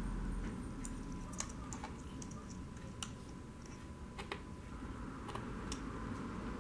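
Scattered light clicks and ticks, about eight of them, as push-on wire connectors are handled and pressed onto the spade terminals of a metal-cased bridge rectifier, over a steady low background noise.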